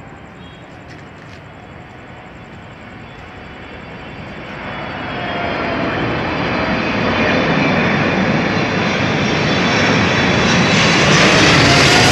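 Twin-engine jet airliner on final approach flying low overhead, its engines swelling from a distant rush to a loud roar with a whine that shifts in pitch as it nears.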